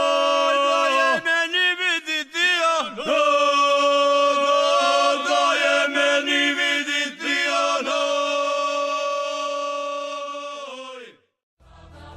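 Ojkavica, the traditional unaccompanied singing of the Dalmatian hinterland: voices hold long notes that shake and break off sharply at the end of each phrase. The singing fades out and stops about eleven seconds in.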